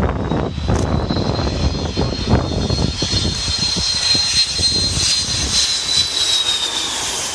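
McDonnell Douglas MD-80-series airliner on short final, passing low overhead. Its jet engines rumble under a steady high whine, which bends down in pitch near the end as the plane goes by.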